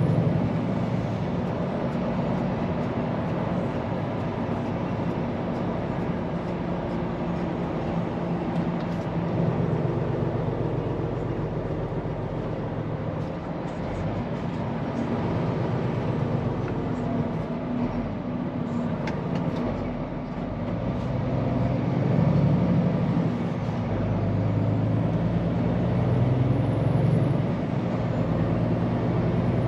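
Scania P410 truck's diesel engine running while driving, with steady road noise. The engine note gets louder about two-thirds of the way through.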